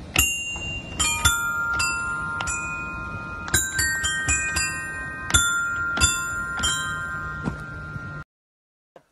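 Musical floor tiles being stepped on: bell-like chime notes start at irregular moments, each with a light knock of the foot, and ring on over one another. The sound cuts off suddenly near the end.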